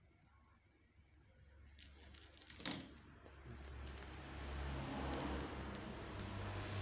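Thin clear plastic film crinkling and clicking as it is handled in the fingers. Under it a low rumble grows steadily louder.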